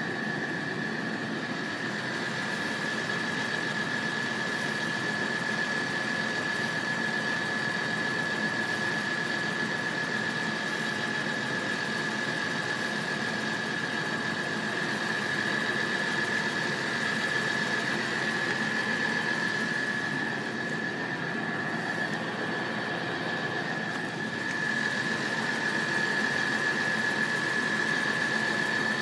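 Level crossing alarm sounder giving a steady high tone while the barriers are down, over a car engine idling at the barrier.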